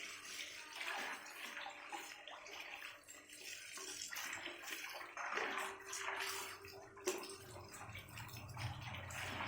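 Water running and splashing over an audio mixer as it is washed with clean water, a treatment meant to cure its crackling. There is a single sharp knock about seven seconds in.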